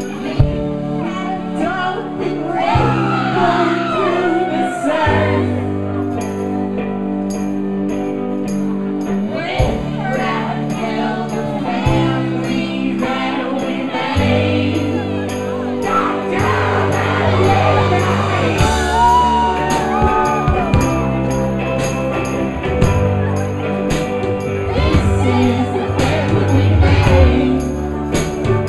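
Live psych-folk band playing: electric guitar and sustained bass notes that change every few seconds, under sung vocals, with a regular high percussion beat.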